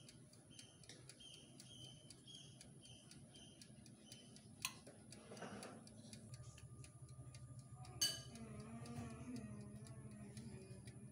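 Faint, even ticking of a countertop oven's mechanical dial timer counting down, roughly three ticks a second, with a couple of sharper clicks. A low steady hum comes in about six seconds in.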